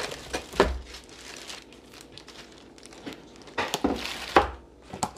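Packaging rustling and crinkling as a doorway pull-up bar is unpacked, with sharp knocks of its parts being handled, once under a second in and several times near the end.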